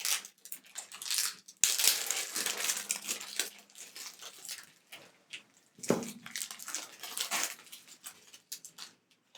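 Plastic shrink-wrap being peeled and torn off a deck of game cards, crinkling and crackling in two spells with a lull in between.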